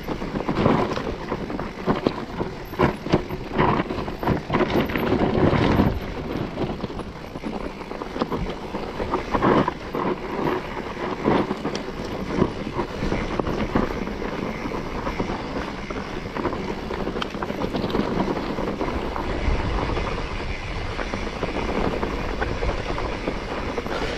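A vehicle travelling over a rough track, with many knocks and rattles over a steady running noise; the knocks come thickest in the first six seconds and again briefly about ten seconds in.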